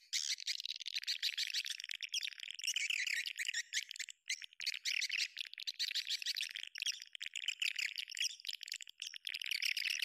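Swiftlet lure call: many swiftlets twittering in dense, rapid high chirps, the sound used to draw swiftlets into a nesting house. There are brief breaks about four and nine seconds in.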